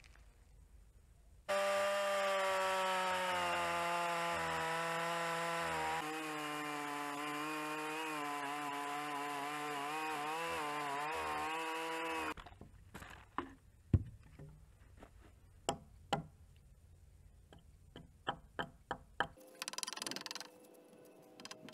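Champion two-stroke chainsaw running at full throttle, ripping a slab lengthwise off a round log for about ten seconds. Its pitch sags a little under load. It then drops to a low idle while a series of sharp knocks sound, hatchet blows on the hewn log.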